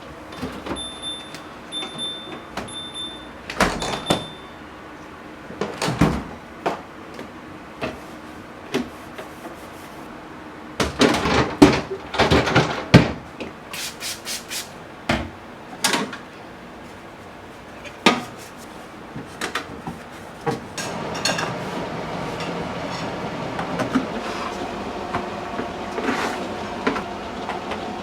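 Kitchen containers, trays and fridge parts being handled, knocked and set down in a run of clatter and clicks that is busiest a little before the middle. Four short electronic beeps about a second apart come near the start, and a steadier rushing noise sets in during the last third.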